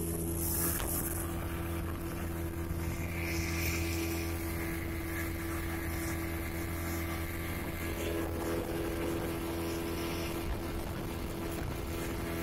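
Motorboat engine running at a steady pitch while the boat moves at speed, with water rushing along the hull.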